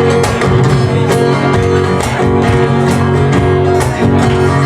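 Live band playing an instrumental passage with no vocals, over a steady beat of about two strikes a second.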